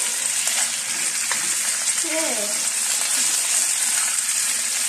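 Chicken wings and sliced onions sizzling in a hot wok, with a steady hiss, while a spatula stirs and turns them against the pan.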